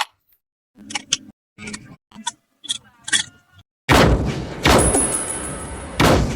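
Sci-fi gun sound effects from a tokusatsu hero show: a string of short mechanical clicks and clacks as the weapon is handled and readied, then about four seconds in a loud sustained firing blast, which surges again near the end.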